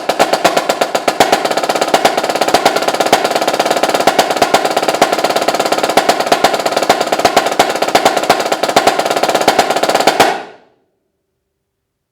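Snare drum solo played with fast, dense sticking and rolls, cutting off abruptly about ten seconds in.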